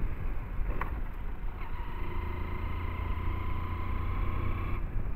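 Hero Splendor 100 cc single-cylinder four-stroke motorcycle engine running at a steady cruise, with a thin steady whine over a low rumble of wind on the microphone.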